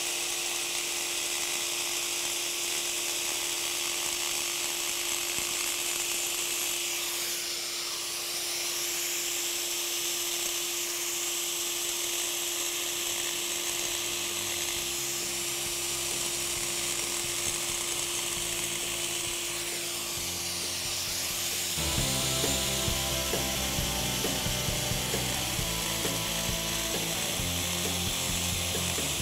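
A 4-inch angle grinder with a small 2-inch diamond blade running and cutting, a steady high hiss with a steady motor whine. About three-quarters of the way through the whine drops out and a busier, lower grinding pattern takes over.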